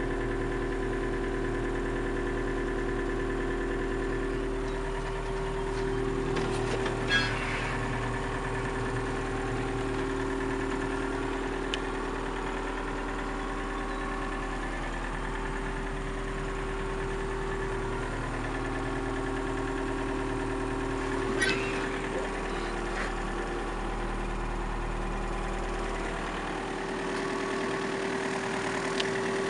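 Komatsu PC50MR-2 mini excavator's diesel engine idling steadily, with two short sharp clicks, the first about seven seconds in and the second about twenty-one seconds in.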